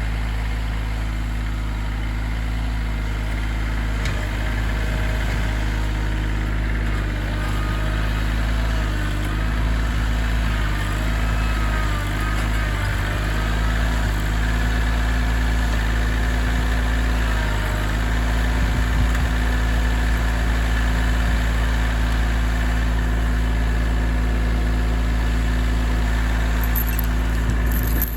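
Tractor engine running steadily, its pitch wavering slightly for a few seconds in the middle.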